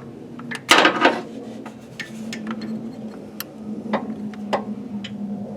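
Hand tools clicking and clinking against metal while the loosened transmission pressure switch is worked out, with a short scraping rustle about a second in and a few irregular sharp clicks after it. A steady low hum sits underneath.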